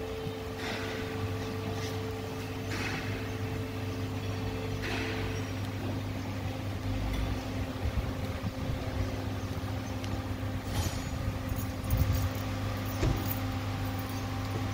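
Car repair workshop ambience: a steady low machine hum, with a few short hisses in the first few seconds and some light clicks about two thirds of the way through.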